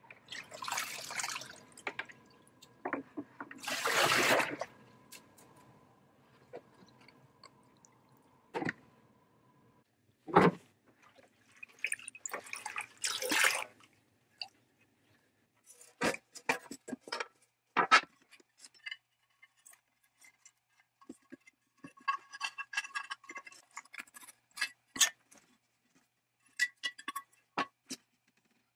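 Rust-remover solution splashing and pouring off as a metal scoop lifts parts out of a bucket, the loudest slosh about four seconds in. In the second half, knocks and the ringing clink of small metal parts knocking together.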